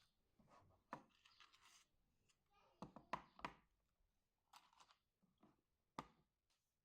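Quiet household handling sounds: a few light knocks and clicks, a cluster of them about three seconds in and a sharp one near the end, with brief rustling in between.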